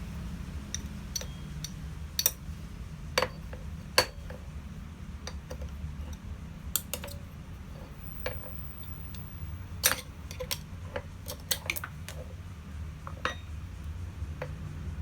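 Light metallic clinks and taps, irregularly spaced, as steel parts of a hand-forged anvil hardy tool are handled and fitted, over a steady low hum.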